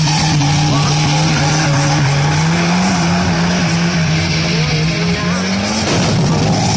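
Car doing a burnout, spinning donuts with its tyres screeching on the asphalt and its engine held at high revs. The engine note stays steady with small wavers, then fades about six seconds in.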